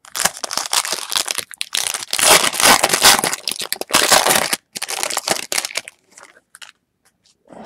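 Crimped foil trading-card pack wrapper being torn open and crinkled by hand, a dense crackling that is loudest from about two to four seconds in and dies away after about six seconds.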